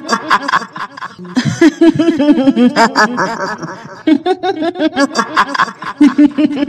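Kuntilanak ghost laugh: a woman's high-pitched 'hihihi' cackle in quick repeated pulses, in three runs broken by short pauses about a second in and about four seconds in.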